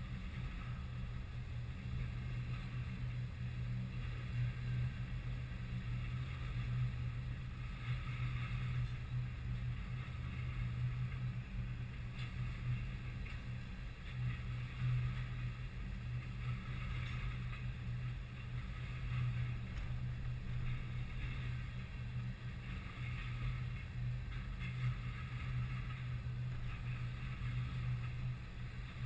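Freight train of covered hopper and tank cars rolling past at steady speed: a continuous low rumble of wheels on rail, with the higher clatter swelling every two or three seconds as the cars go by.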